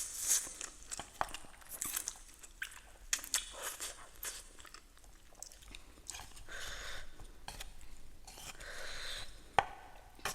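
Close-miked eating sounds: crisp bites, crunching and chewing, with two longer hissy mouth-noise stretches in the second half and a sharp click near the end.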